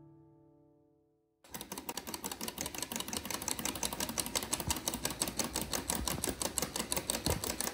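The last notes of background music fade out. About a second and a half in, rapid, even ticking starts: several 3D-printed plastic tourbillon escapements running together.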